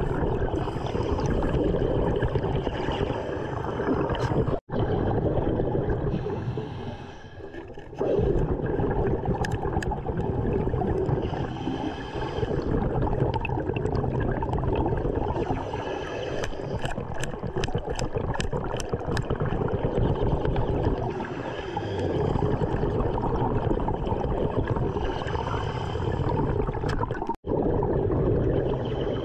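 Underwater breathing of a diver: air bubbles gurgling and rushing out in slow swells every few seconds, with a run of quick clicks partway through.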